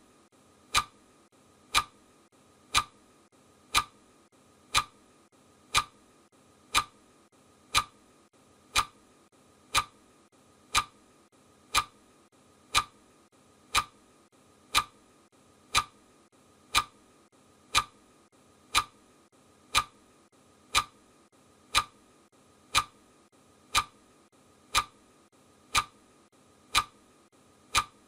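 Clock ticking sound of a countdown timer: sharp, even ticks at one per second, each with a short bright ring.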